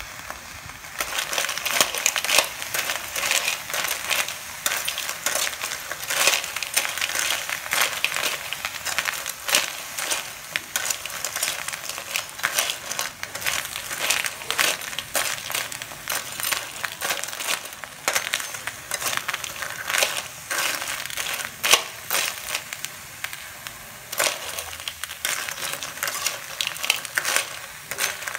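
Crab claws being stirred in a metal wok with a metal skimmer: the hard shells clatter and scrape against the pan in a dense run of irregular clicks. This starts about a second in, after a brief steady frying sizzle.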